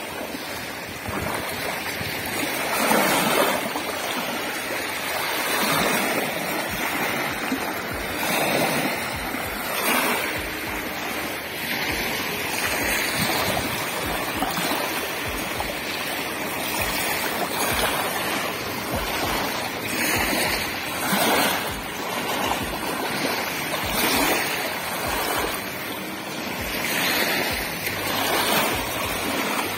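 Small river waves lapping and washing onto the shore, swelling and falling every few seconds.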